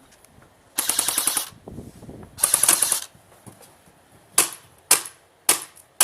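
Airsoft gun firing two short full-auto bursts of rapid clicking shots, then single shots about every half second.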